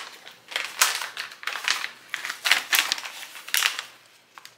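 Crinkly plastic pouch being torn and pulled open by hand: a run of crackling rustles, about two a second, dying away near the end.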